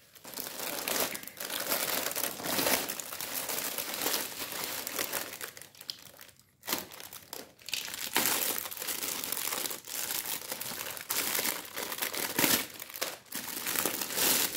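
Clear plastic bags and bubble wrap crinkling and rustling as hands unwrap a plastic face mask, in irregular handfuls with a short pause about six and a half seconds in.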